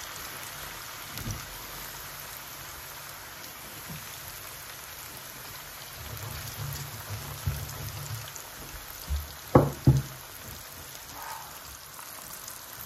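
Flour-coated chicken pieces deep-frying in hot oil: a steady sizzle. Two sharp knocks a little under ten seconds in are the loudest sounds.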